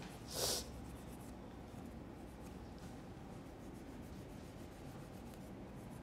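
A single brief rubbing swish about half a second in, over faint steady background noise.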